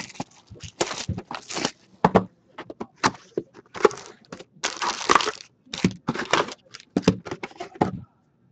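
Cardboard box of hockey cards being opened and its foil-wrapped packs crinkling as they are pulled out and stacked on a table: irregular bursts of rustling and crackling with short pauses.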